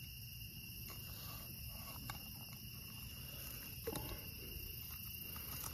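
Steady chorus of night insects, several high-pitched trills held at different pitches. A few faint clicks and rustles come about two and four seconds in, as pliers work a hook out of a fish's mouth.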